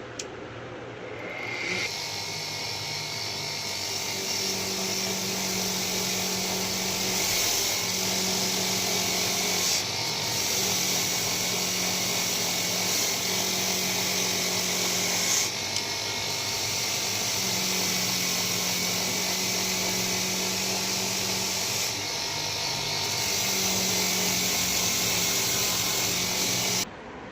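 A small electric power tool running steadily with a high hiss. It starts about two seconds in and stops abruptly near the end.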